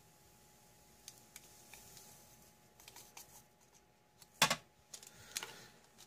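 Sugar poured from a small paper packet into a ceramic mug: faint trickling and paper rustling with scattered light ticks, then a sharp tap about four and a half seconds in and a softer one a second later.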